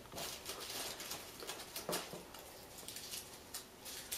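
Faint rustling and crinkling of crumpled paper slips as a hand rummages through them inside a cloth baseball cap, with a few small handling clicks.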